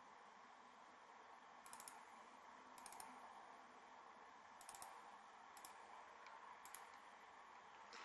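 Near silence with about five faint, scattered computer mouse clicks, made while browsing through folders in a file dialog.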